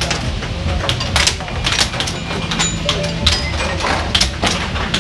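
Plastic pucks clacking off mallets and the rails of a multi-puck air hockey table: sharp, irregular knocks about two to three a second, over a steady low hum.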